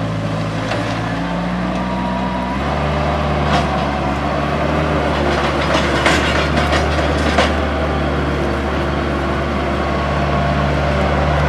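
Heavy construction machine's engine running steadily, with its note shifting about two and a half seconds in. A few sharp knocks sound over it.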